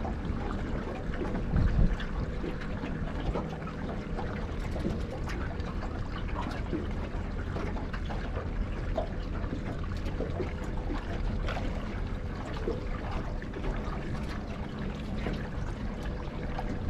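Water lapping and trickling against a small boat's hull in a running current, over a low rumble with scattered small clicks and a faint steady hum.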